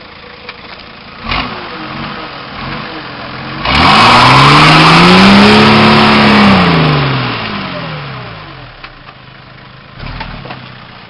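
Nissan Patrol GR Y60's 4.2-litre diesel running low, then revved hard for about three seconds as the truck climbs with its tyres spinning and spraying dirt, the engine pitch rising and then falling back before it drops to a quieter run.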